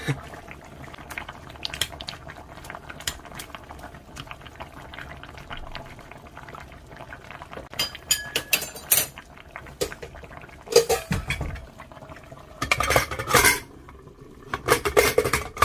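A utensil clinking and scraping against a pot as a stew is stirred, over a steady simmer. The clatter comes in clusters about halfway through and again near the end.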